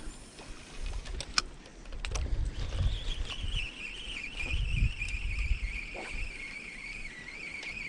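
Spinning reel being cranked on a lure retrieve, a steady wavering whine from its gears that starts a couple of seconds in. Low gusty rumbling on the microphone, with a few sharp clicks early on.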